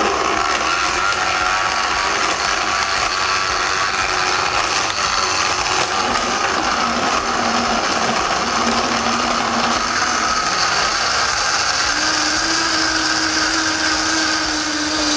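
Vitamix Ascent A3500i blender running at high speed on its drinks program, its blades churning ice, blueberries and banana into a smoothie, with the tamper pushed down into the jar partway through. A loud, steady whirr whose low motor hum rises slightly in pitch near the end.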